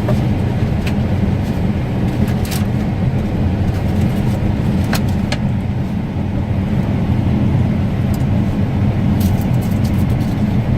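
Steady low drone of harvest machinery heard from inside its cab, with a few sharp clicks.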